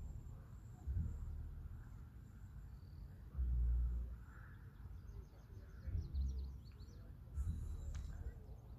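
Outdoor riverside ambience with wind gusting against the microphone in low rumbling surges, the strongest a little past three seconds in. Small birds chirp faintly about five to six and a half seconds in, and there is a single sharp click near the end.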